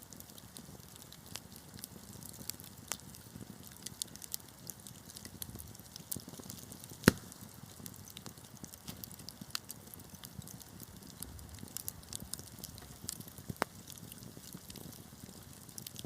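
Wood fire crackling: scattered small pops and snaps over a soft low rumble of burning, with one sharp, much louder pop about seven seconds in.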